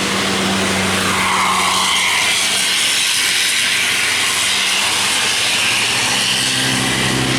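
Tour bus passing at close range: a loud, steady rush of engine and road noise with an airy hiss over a low engine hum.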